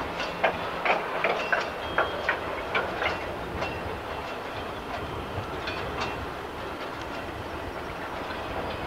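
Freight train headed by a Class 56 diesel locomotive moving slowly through the pointwork. Its wheels clatter and click sharply over the rail joints and points, thickly for the first three seconds, then settling to a steadier rumble with only occasional clicks.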